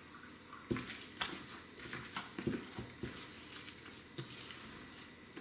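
A hand squeezing and working tamale masa with red chile sauce in a stainless steel bowl: irregular wet squishing starting about a second in, with a few dull knocks from the bowl.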